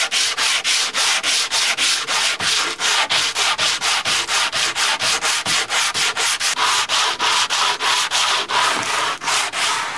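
Coarse 40-grit sandpaper on a hand sanding block rubbed back and forth over reclaimed wood boards, in a quick, even rhythm of about five strokes a second.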